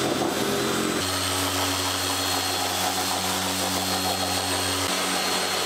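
Festool Rotex eccentric sander running steadily as it sands an MDF box edge round, a continuous motor hum with sanding whir. Its pitch steps slightly about a second in and again near the end.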